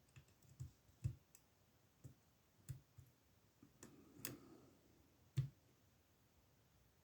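Faint, irregular clicks and taps of a lock pick and tension tool working the pins of a SIL 30mm padlock. About eight separate clicks, the loudest about five and a half seconds in.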